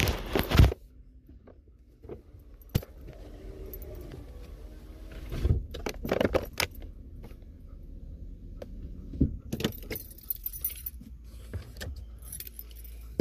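Handling noise from a phone fumbled against a dog: a loud knock right at the start, then scattered bumps and rustles. Small metal pieces jingle in several short bursts over a low steady rumble of the truck cab.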